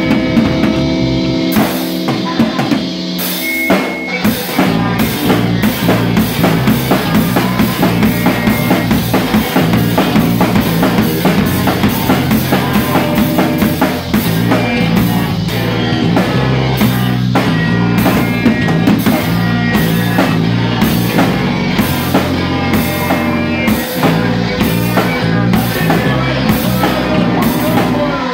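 Live rock band playing loudly, drum kit to the fore with guitar and bass. The lowest bass drops out for a couple of seconds near the start, and the full band comes back in about four seconds in.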